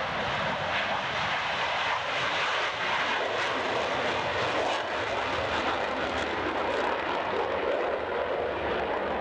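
A General Dynamics F-16 Fighting Falcon's jet engine at full takeoff power as the fighter lifts off after a very short takeoff roll and climbs away: steady, loud jet noise.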